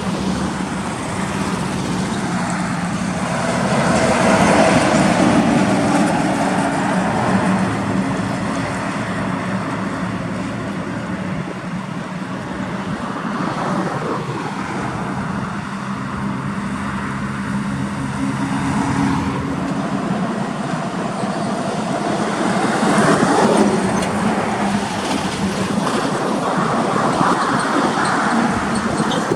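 Heavy truck running amid road traffic noise, a steady low hum holding throughout; the sound swells louder twice.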